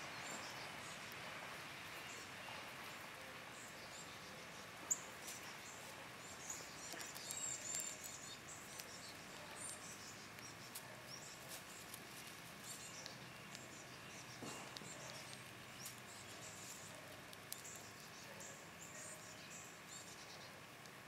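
Squirrels cracking and nibbling seeds close to the microphone: many small, scattered clicks and crackles of seed shells over a faint outdoor hiss, with one sharper click about five seconds in. A few high bird chirps sound in the background.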